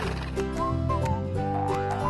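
Background music: a simple melody of held notes, with no narration.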